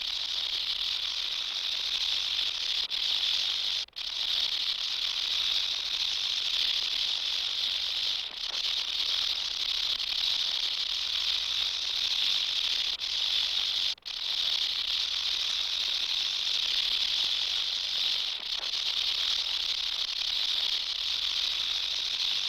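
Rattlesnake shaking its tail rattle in a continuous high buzz, the defensive warning display, broken by brief pauses about four seconds in and again about fourteen seconds in.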